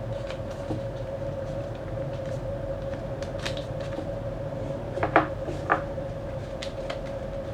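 Packaging being handled as in-ear monitors are taken out of their box: scattered light clicks and rustles, with two sharper clicks a little past the middle, over a steady hum.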